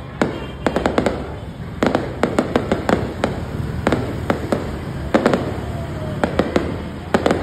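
Aerial fireworks bursting overhead: an irregular string of sharp bangs and crackling pops, often several in quick clusters, about three a second.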